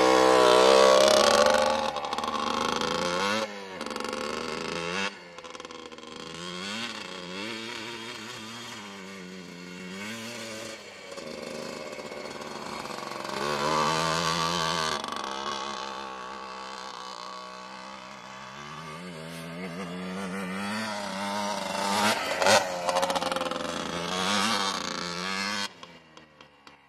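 Yamaha Blaster quad's two-stroke single-cylinder engine revving hard as it pulls away across gravel, loudest in the first two seconds. Its pitch then rises and falls again and again with throttle and gear changes as the quad rides around, swelling louder twice more, and the sound drops away just before the end.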